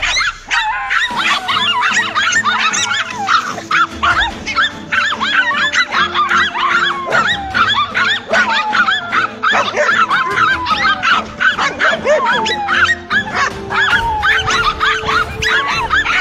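Several dogs barking and yelping in rapid, overlapping calls as they bait a cornered lizard, with background music underneath.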